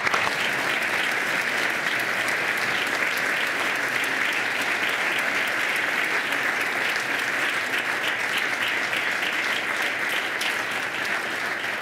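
Many people clapping steadily together: a standing ovation in a large legislative chamber.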